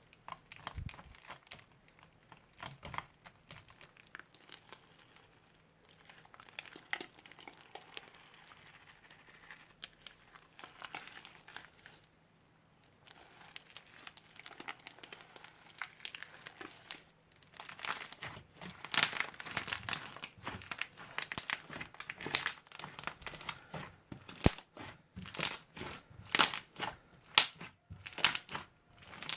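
Crunchy slime being squeezed and pressed by hand, giving rapid crackling and popping. The crackles get much louder and denser a little past halfway.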